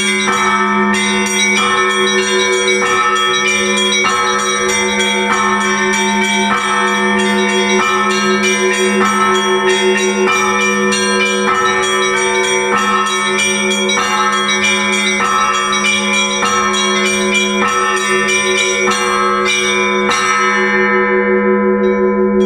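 Russian Orthodox church bells ringing a peal to call the faithful to the liturgy: a deep bell hum runs under a heavier stroke about once a second, with the small bells chiming rapidly over it. The smallest bells stop near the end while the lower bells ring on.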